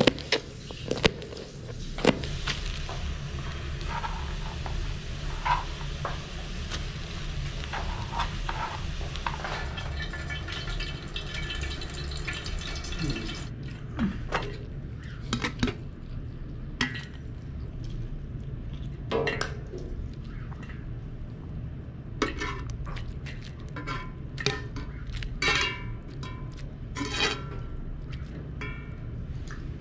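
Cooking sounds: purslane stems snapping as leaves are picked by hand in the first seconds, then metal utensils clinking, knocking and scraping on a steel pot and plate, some clinks ringing briefly. A hissing stretch stops abruptly about 13 seconds in, and a steady low hum runs underneath.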